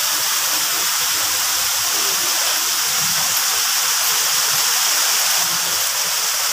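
Small waterfall spilling in thin streams down a rock face, a steady rushing hiss of falling and splashing water.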